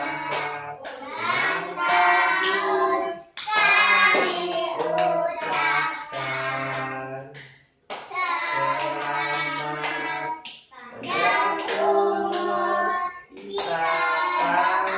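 A family group, children's voices among them, singing a birthday song together in phrases with short breaks between them, with some hand clapping.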